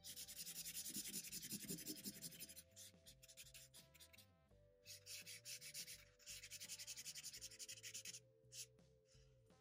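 Wide felt-tip marker rubbing quickly back and forth on paper while colouring in a large area, in three runs of fast strokes with short pauses between. The sound is faint.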